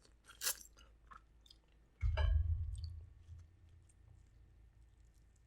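Close-miked chewing of seafood boil food, with small wet clicks and a short crackle about half a second in. About two seconds in comes a low thump, the loudest sound, fading over about a second.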